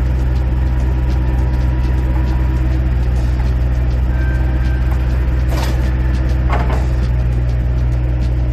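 An engine running steadily at constant speed, a loud even drone, with a couple of brief higher-pitched scrapes about halfway through.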